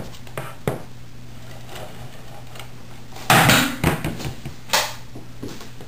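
Cardstock and craft tools handled on a work surface: scattered light clicks and taps, a loud papery rustle lasting about half a second a little past halfway, and a shorter one about a second later, over a faint steady hum.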